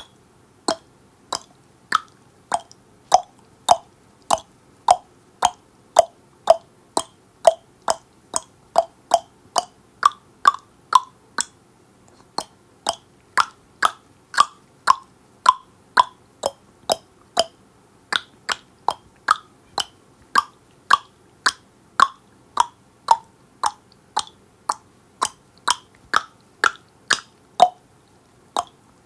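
A person clicking their tongue over and over, a little under two clicks a second. The pitch of the click shifts between lower and higher from one stretch to the next, with a brief pause about halfway through.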